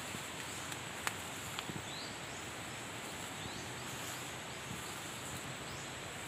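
Outdoor ambience among forest undergrowth: an even hiss with a steady high insect drone, a few short rising chirps, and a couple of sharp clicks in the first two seconds.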